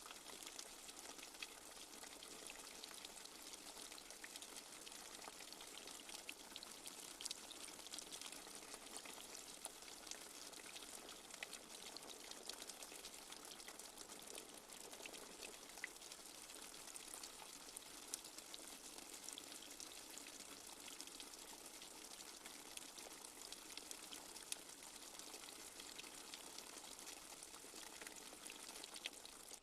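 Light rain falling steadily and softly, a faint even hiss sprinkled with many small drop ticks.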